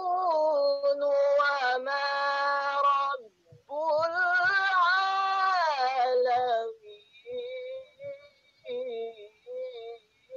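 A high voice singing long held, gently gliding notes in two phrases of about three seconds each, then shorter, fainter broken notes near the end.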